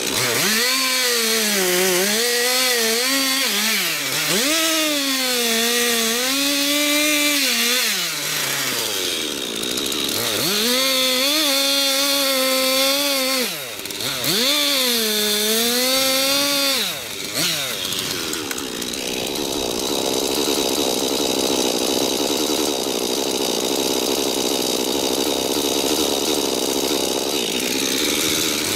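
Chainsaw cutting into wood, its engine pitch sagging as the chain bites and climbing again between cuts. After about 18 seconds it settles into a steadier, rougher buzz.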